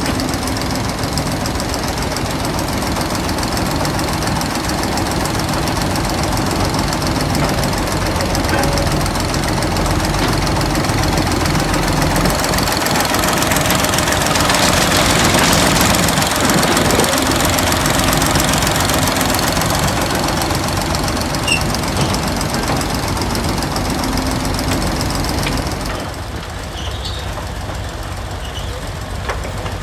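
Large diesel engine of an old piece of heavy earthmoving machinery running under load with a steady clatter. It grows louder toward the middle, then drops and turns duller near the end.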